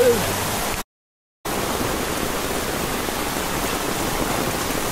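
Heavy rain pouring down, a dense steady hiss. It cuts out completely for about half a second about a second in, then resumes just as steady.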